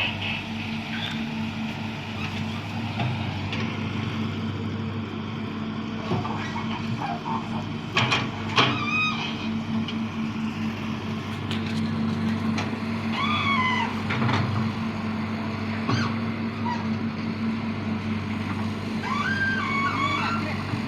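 Excavator's diesel engine running steadily. A few short shouted voices come over it about eight, thirteen and nineteen seconds in.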